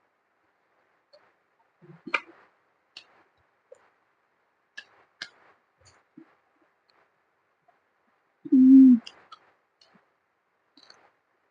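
Close-up eating sounds: scattered small clicks and smacks of chewing and lip-smacking. About eight and a half seconds in there is one loud, short, low voiced sound from the eater's mouth.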